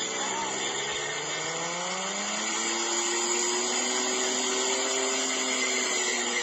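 Car engine revving during a burnout, its pitch climbing over the first couple of seconds and then held high and steady, over a constant hiss of spinning tyres.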